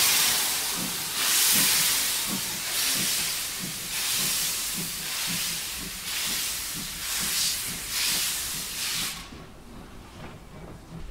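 C11-class steam tank locomotive starting a train: exhaust chuffing about twice a second under loud bursts of hiss from steam vented at the cylinder drain cocks. The hiss stops about nine seconds in, leaving a quieter rumble.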